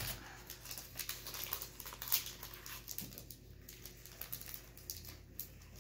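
Foil booster-card wrappers crinkling and being torn open by hand: a scattered run of small, irregular crackles and ticks.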